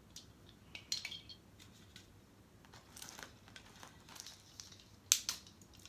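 Clear plastic packaging crinkling and small sharp clicks as Christmas ball ornaments are handled and pulled out of their plastic tray, in scattered bursts with the sharpest clicks about five seconds in.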